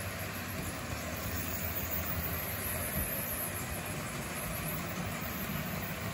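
Motorized HO-scale model railroad turntable running, its small electric drive motor and gearing giving a steady whir and hum as the bridge slowly rotates.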